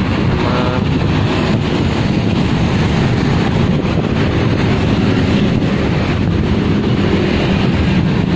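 Wind buffeting the microphone over a steady stream of motorcycles and cars passing on the bridge roadway.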